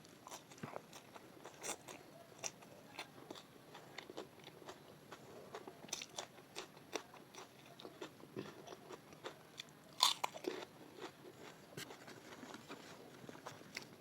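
Close-miked mukbang eating of chole bhature, fried puffed bread with chickpea curry: irregular wet chewing and crisp crunching bites, the loudest crunch about ten seconds in.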